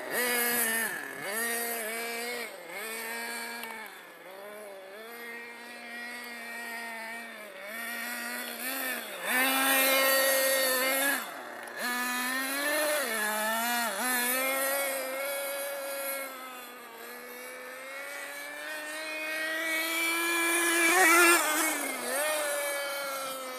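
Small two-stroke nitro glow engine (ZX21) of a 1/7-scale RC car revving up and down as it is driven, its high buzzing pitch dropping off and climbing again with each throttle lift and squeeze. It winds up in a long rising rev and is loudest about 21 seconds in.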